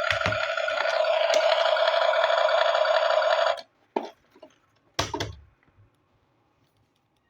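Remote-control toy vehicle giving a steady, loud buzzing tone that cuts off suddenly about three and a half seconds in, followed by a few short plastic clicks and knocks.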